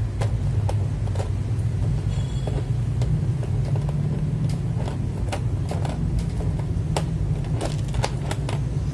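A steady low rumble, with scattered light clicks and taps at irregular intervals from mechanical keyboard parts being handled during assembly.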